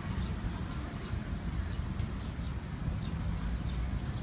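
Small birds chirping in quick, repeated short notes over a loud, uneven low rumble.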